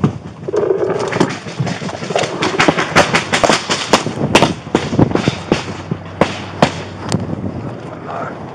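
Body-worn camera being jostled as an officer climbs out of a patrol car and moves quickly on foot: a car door, then a string of sharp knocks and thumps from footsteps and gear striking the camera.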